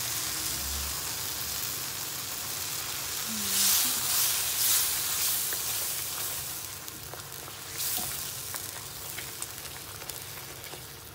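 Tomato-onion masala gravy sizzling in a nonstick kadai as fresh cream is stirred into it with a spoon. The sizzle grows louder around four seconds in, then fades toward the end.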